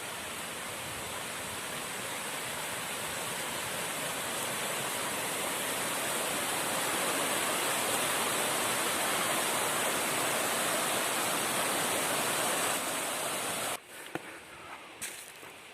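Rushing water of a mountain stream, a steady noise that slowly grows louder and cuts off abruptly about 14 seconds in. It gives way to faint rustling and crunching steps in dry leaves.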